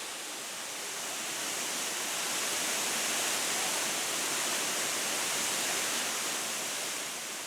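A broad waterfall, about 10 metres high and 16 metres wide, with falling water making a steady hiss that swells a little in the middle.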